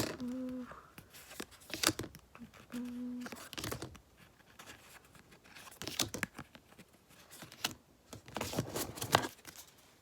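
Paper and plastic inserts from a K-pop album rustling and crinkling as they are handled, in irregular short bursts. Two brief steady low hums are heard, near the start and about three seconds in.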